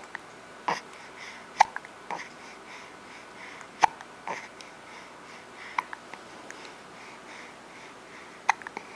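A person hiccuping repeatedly: short, sharp hiccups every second or two at uneven intervals, about seven in all, some louder than others.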